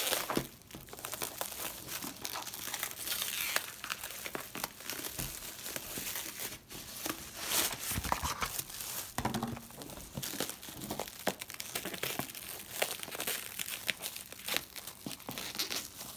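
Plastic cling wrap crinkling and tearing as it is pulled and stripped off a cardboard box: a continuous run of crackles and sharp snaps.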